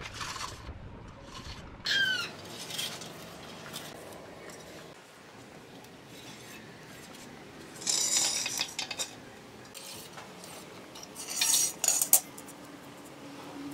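Wooden strips and an aluminium straightedge clattering and scraping on a concrete floor as they are laid out, in two louder bursts, one past the middle and one near the end.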